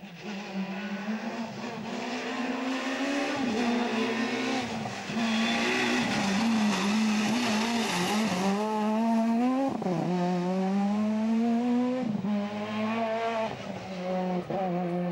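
Peugeot 206 rally car's engine at racing revs, growing louder as it approaches, loudest in the middle. The pitch climbs and drops several times as the driver works the throttle and changes gear through the bend, then it pulls away.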